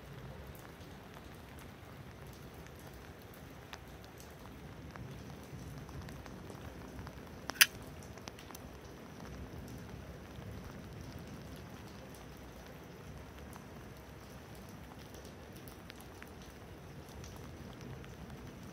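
Light rain pattering steadily, with faint scattered drop ticks. About seven and a half seconds in comes one sharp, loud click as the folding knife's blade snaps open.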